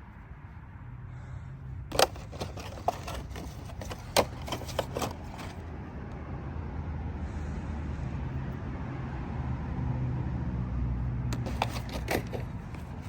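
Sharp clicks and knocks of plastic toy animals being handled and set down, in two bursts, over a steady low rumble.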